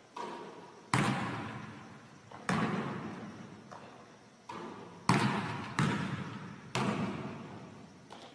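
A basketball bouncing on the gym floor and hitting the hoop during shooting practice: about seven separate thuds, each ringing out in a long echo. The loudest come about a second in and about five seconds in.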